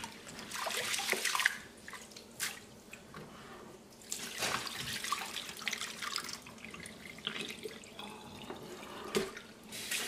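Raw rice being washed by hand in a plastic bowl in a stainless steel sink: tap water running and splashing as the grains are rubbed and swished, and cloudy rinse water tipped off into the sink. The splashing is louder in the first second and a half and again from about four to six seconds in.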